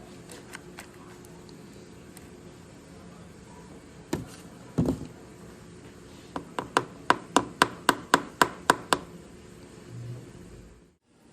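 Two dull knocks, then a run of about ten sharp, evenly spaced clicks at roughly four a second, like a ratcheting tool being worked.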